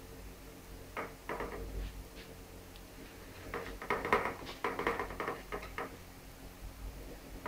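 Hands patting and pressing logs of soft, oiled biscuit dough on a metal baking tray: a few soft pats about a second in, then a quicker run of taps between about three and a half and six seconds.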